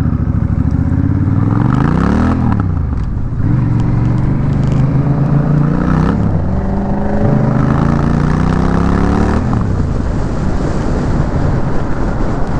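Honda Rebel 1100's 1084 cc parallel-twin running loud through its exhaust with the muffler removed. The revs climb to about two seconds in and drop back, then the engine holds at steady speeds with its pitch slowly sinking, and the sound turns rougher near the end.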